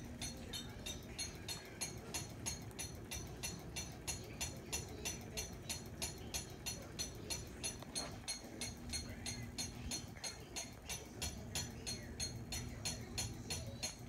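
Ceiling fan spinning with a steady, rhythmic ticking, several ticks a second, over a low hum; the owner wonders whether the ticking means something is wrong with the fan.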